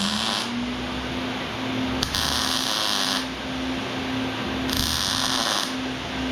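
An electric power tool motor spins up and then runs steadily, with three harsh bursts of about a second each, typical of a grinder working on steel.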